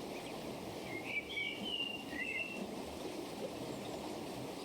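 Running stream water, a steady rushing, with a bird chirping a few short phrases about a second in.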